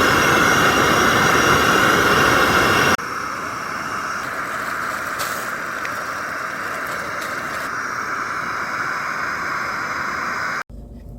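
Heavy rain and strong wind on a tent, a steady rushing noise. It is loudest for the first three seconds, then drops suddenly to a slightly quieter stretch, and cuts off abruptly near the end.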